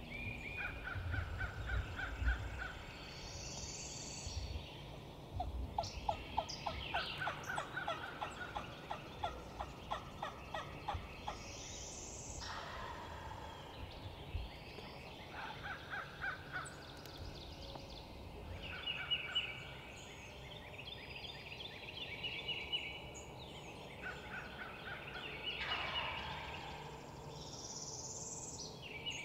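Eastern wild turkey gobbling several times in rapid rattling bouts, with other birds singing high and sweeping calls in between.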